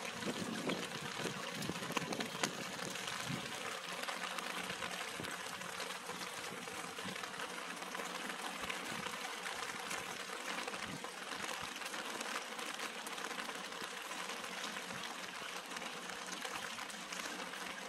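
Steady rain falling on the leaves and flowers of potted Madagascar periwinkle, an even patter with a few sharper drip taps in the first few seconds.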